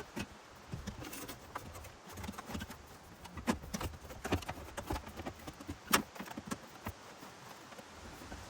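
Irregular clicks, taps and light knocks of tools and parts being handled during hands-on repair work, with one sharper knock about six seconds in.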